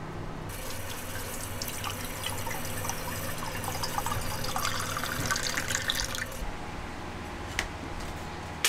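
Water running from a galley tap into a stainless-steel-lined insulated tumbler for about six seconds, the pitch of the pour rising as the cup fills. A couple of short sharp clicks follow near the end.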